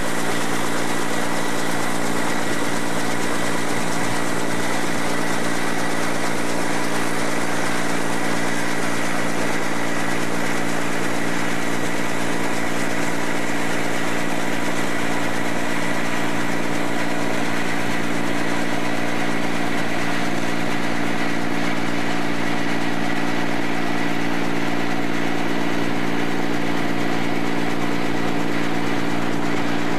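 Bell 47 helicopter's piston engine and rotors running steadily: an even drone with a thin high whine over it.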